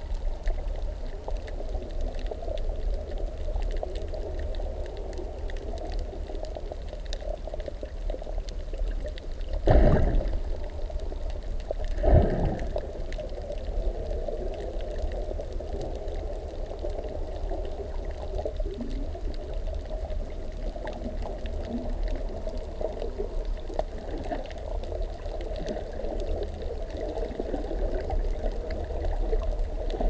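Underwater noise heard through a submerged camera: a steady muffled watery rumble, with two brief louder swells about ten and twelve seconds in.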